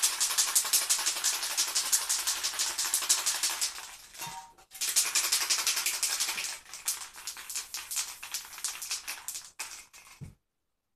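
Aerosol spray-paint can being shaken, its mixing ball rattling in rapid clacks about ten a second, with a short break about four seconds in. From about six seconds the sound turns uneven and comes in shorter bursts, then stops near the end.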